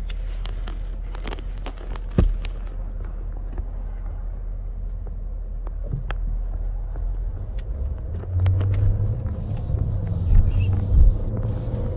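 Cabin sound of a 2021 Jaguar F-Type R's supercharged 5.0 L V8 running as the car drives off, a low steady rumble that grows louder about eight seconds in as the car gets under way. A few sharp clicks and a knock sound in the first couple of seconds.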